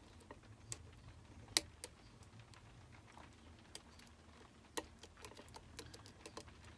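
Scattered small metallic clicks and ticks of a lock pick working the spool driver pins inside a Union D-Tec euro cylinder, the sharpest click about a second and a half in.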